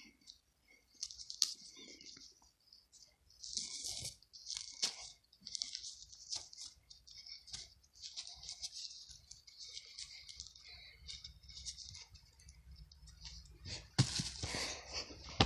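Hands scraping and rummaging through loose, dry earth around rusted buried objects: irregular bursts of gritty scraping and rustling with a few sharp clicks. Louder handling noise with a low rumble comes in near the end.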